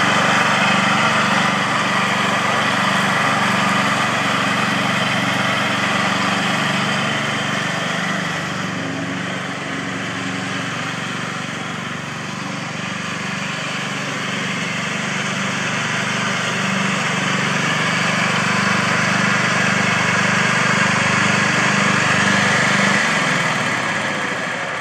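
Simplicity front-deck riding mower running steadily while it mows, engine and blades together. It grows quieter for a few seconds midway as the mower moves off around a tree, then louder again. The engine note drops away near the end.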